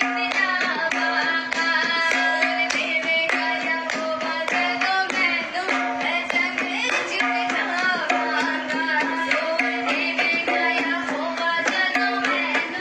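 Devotional worship music: a voice singing over a held low note, with quick, steady drum beats throughout.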